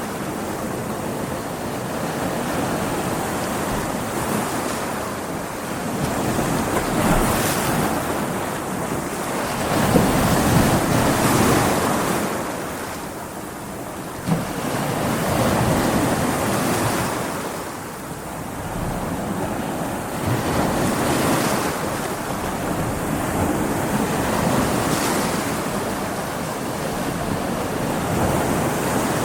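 Ocean waves breaking on rocks, swelling and drawing back every four to five seconds, with a short sharp slap about halfway through.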